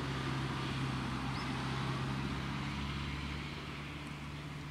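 Steady low engine hum with a faint, even rushing noise over it, easing off slightly toward the end.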